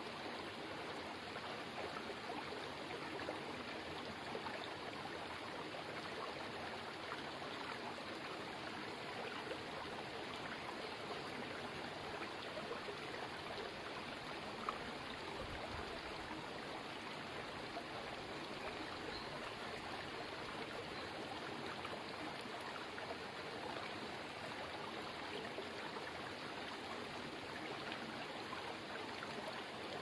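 Mountain stream flowing over and around boulders: a steady, unbroken babble of running water.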